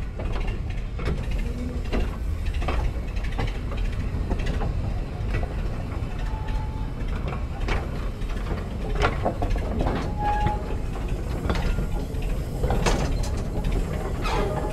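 Narrow-gauge goods wagons rolling slowly along the track, a steady low rumble of wheels with irregular knocks and clanks from wheels, couplings and buffers, and a couple of short squeals.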